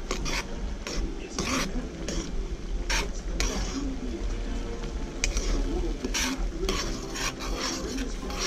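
A metal spoon stirring and scraping a simmering tomato stew sauce around a wok-style pan, in irregular strokes about once a second, over a soft sizzle.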